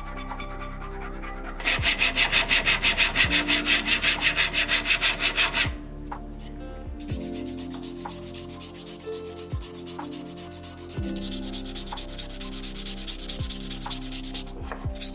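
Hand file rasping across a tassie oak hammer handle in steady back-and-forth strokes, about four a second, then sandpaper rubbed along the wooden handle, quieter and faster.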